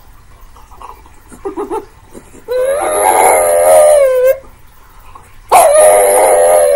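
French bulldog howling: two long, slightly wavering howls of nearly two seconds each, the second starting a little before the end. A couple of brief, softer sounds come before the first howl.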